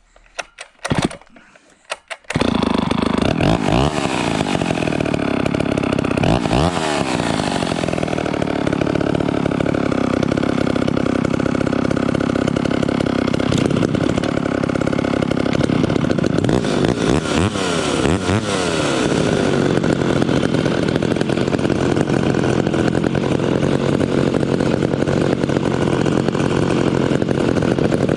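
Three vintage two-stroke chainsaws with custom exhausts running together, revved up and down so their pitches rise, fall and cross. A few short bursts in the first two seconds come before the continuous running takes over.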